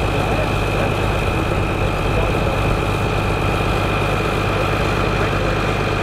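Ford County 1184 TW tractor's six-cylinder turbo diesel engine running steadily at low revs as the tractor creeps forward. A steady high whine sits over the low engine rumble.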